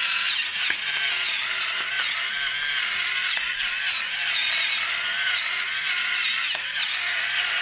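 Pepper grinder grinding black pepper: a steady, continuous grinding noise that cuts off at the very end.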